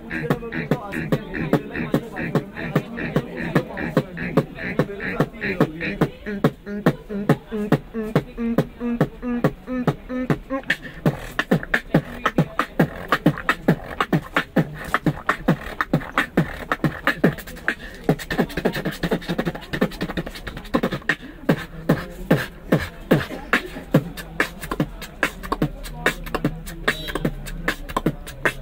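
Beatboxing into cupped hands: a fast, continuous beat of mouth-made kicks, snares and clicks. For roughly the first ten seconds it is laid over hummed bass tones, then it turns denser and faster.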